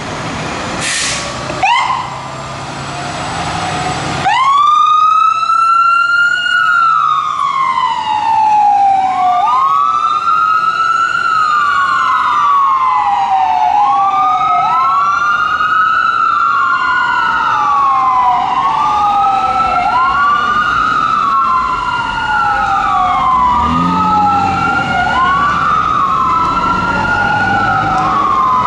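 Fire engine's Whelen 295 electronic siren on wail, each cycle rising quickly and falling slowly, repeating about every four to five seconds with the wails overlapping. The siren starts about four seconds in, after a short hiss and the diesel engine running.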